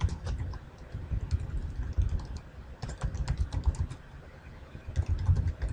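Typing on a computer keyboard: quick runs of keystrokes in about four bursts, with short pauses between them.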